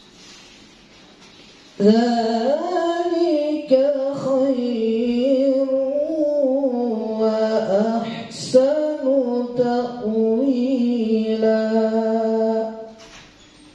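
A man reciting the Quran in the melodic tilawah style: after a short pause, one long phrase sung with wavering, richly ornamented pitch, starting about two seconds in and fading out about a second before the end.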